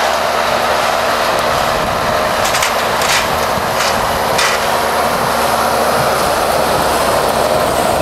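John Deere 6110 tractor's diesel engine running under load while it drives a square baler across the field. A run of sharp clacking knocks from the baler's machinery sounds between about two and four and a half seconds in.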